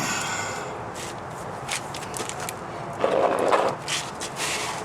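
Scattered knocks and clinks from handling a car alternator and parts in an engine bay, with a longer scraping rustle about three seconds in.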